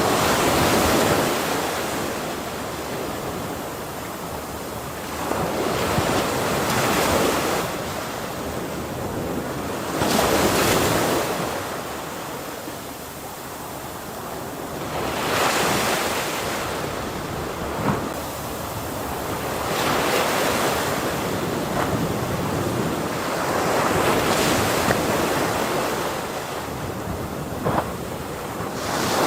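Ocean waves breaking on a shore: a continuous wash of surf that swells into a crash and falls back every few seconds.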